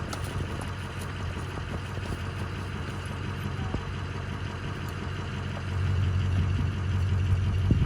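An engine idling steadily with a low hum, growing louder about six seconds in.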